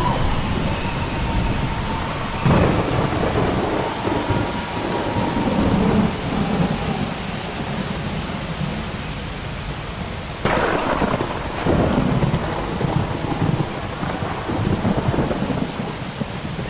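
Thunderstorm sound effect: steady rain with several sudden claps of thunder spread through.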